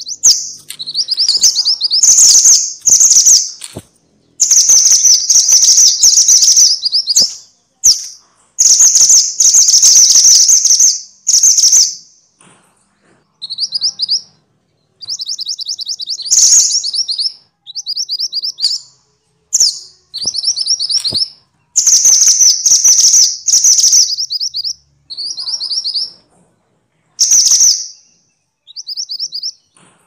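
Minivet (burung mantenan or sepah, genus Pericrocotus) calling noisily. It gives loud, high-pitched phrases of rapid rolling notes, each one to two seconds long, repeated with short gaps between them.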